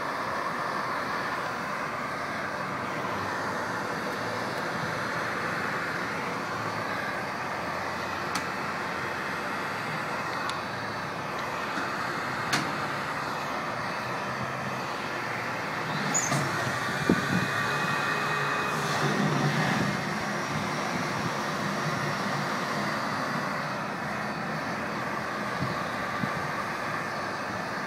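Heat gun running, its fan blowing with a steady hiss. About sixteen seconds in, a louder low rumble with a few knocks rises for several seconds, then fades.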